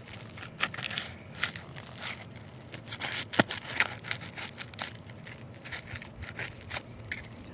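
Irregular crinkling, tearing and scraping sounds, a run of short dry crackles and clicks, with the sharpest click about three and a half seconds in.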